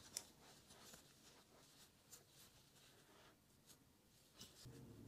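Near silence, with faint scratchy rustles and a few soft ticks from a metal crochet hook working thick yarn through stitches.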